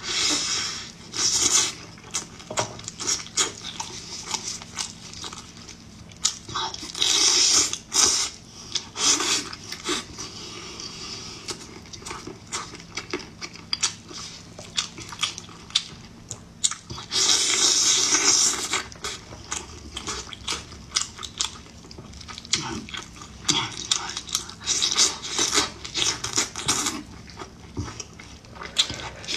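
Close-up eating sounds of a person biting, chewing and sucking meat off cola-braised chicken wings: a run of wet smacks and clicks with several longer, louder noisy bursts.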